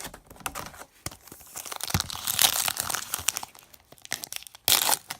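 A trading card pack wrapper being torn open and crinkled by hand, in uneven rustling bursts, loudest about two to three seconds in, with a short sharp burst near the end.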